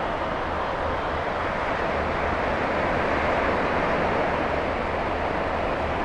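Ocean surf: a steady rushing wash of breaking waves with a low fluttering rumble beneath.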